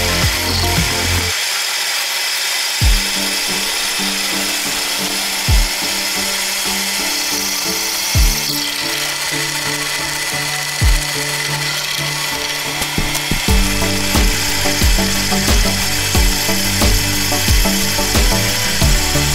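Drill press bit cutting into a steel sprocket, a steady high cutting hiss, over background music with low notes and a short thump about every two and a half seconds.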